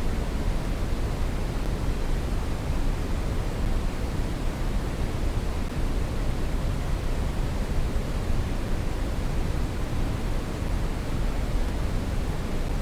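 Steady brown noise: a continuous, even rushing hiss weighted toward the low end, unchanging throughout.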